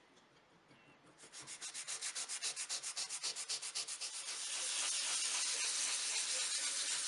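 Sandpaper rubbed by hand over the edges of a wooden joint. It starts about a second in with rapid, short back-and-forth strokes, then blends into a steady, continuous scratchy rasp about four seconds in.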